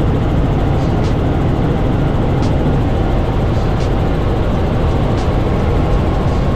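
Helicopter in flight heard from inside the cabin: a loud, steady rumble of engine and rotor noise.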